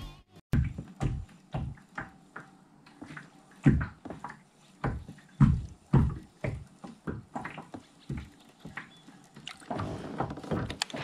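Small waves slapping and knocking against a kayak hull in an irregular series of low thumps, about one or two a second, with faint water lapping between them.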